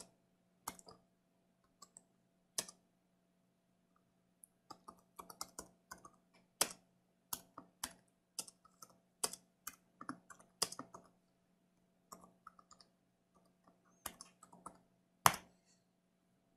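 Computer keyboard being typed on: short, irregular runs of key clicks with pauses between them, and one louder keystroke near the end.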